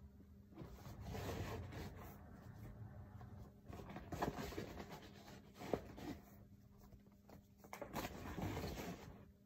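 Faint, uneven rustling and scraping with a few light clicks: small supplies from a blood glucose meter kit (lancets, test strips, paper booklets) being packed back into a bag by hand.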